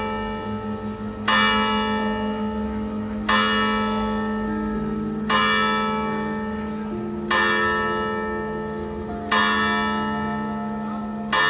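A single church bell tolling slowly, struck six times about two seconds apart, each stroke ringing on and fading under the next.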